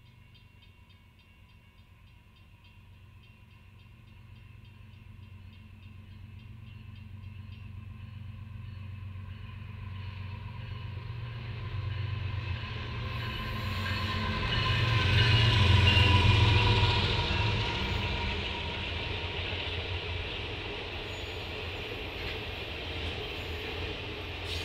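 Diesel locomotives hauling a circus train approach, growing steadily louder with a low engine rumble, pass closest about 15 seconds in, then give way to the steady rumble and clatter of the train's cars rolling by.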